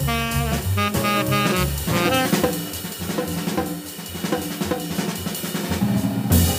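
Jazz drum kit playing alone, with snare, bass drum, hi-hat and cymbals, after a saxophone phrase that ends about two seconds in. A cymbal crash near the end leads into the next soloist.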